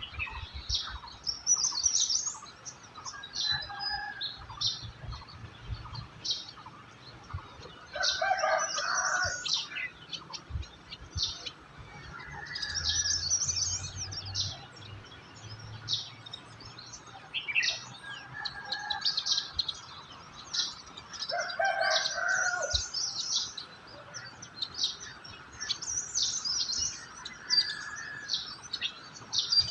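Several small songbirds chirping and singing, with many quick high chirps overlapping one another. Twice, a lower, fuller bird call stands out, about a third of the way in and again about two-thirds through.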